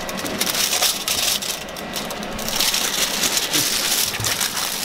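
Aluminium foil crinkling and rustling as it is lifted and folded by hand, a dense run of quick crackles.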